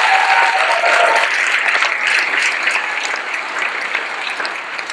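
Audience applauding, the clapping slowly fading.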